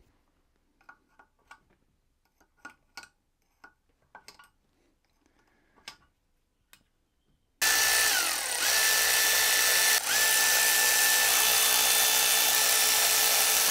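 A few light metallic clicks and taps of hand tools, then about seven and a half seconds in a drill-type power tool starts and runs loud and steady, its pitch dipping twice as it loads up, undoing the cylinder head nuts.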